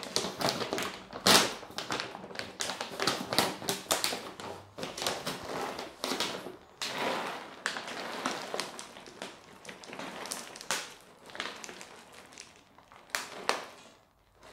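A plastic bag of dry cat food crinkling as it is handled, with dry kibble tapping and rattling into a bowl in quick irregular clicks.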